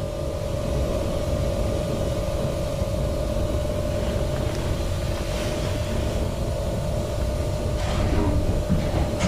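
A 1977 Stadtbahn light-rail car standing still with its onboard equipment running: a low rumble under one steady humming tone, with a few light clicks near the end.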